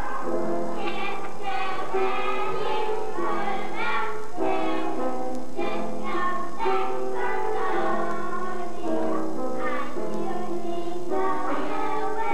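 A song with accompaniment, sung by young children's voices in held, steady notes.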